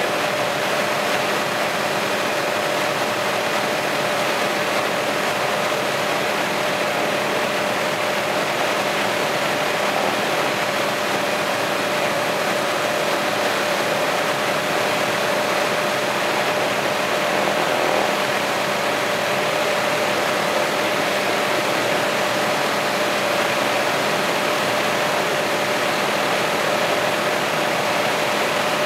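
Helicopter cabin noise in flight: the engine and rotors make a steady rushing drone with a constant tone held through it.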